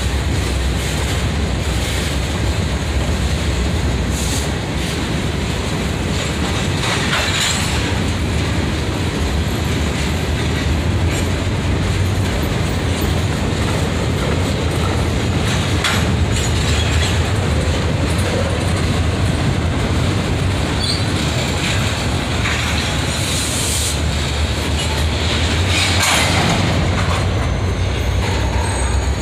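Freight train of covered hoppers and boxcars rolling past close by: a steady, loud rumble of steel wheels on the rails with clickety-clack over the joints, and brief high-pitched wheel squeals a few times.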